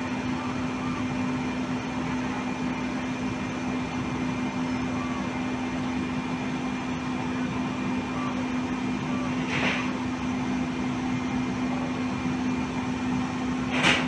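Heavy diesel engine idling with a steady hum, with two short bursts of hiss, one about ten seconds in and one at the end.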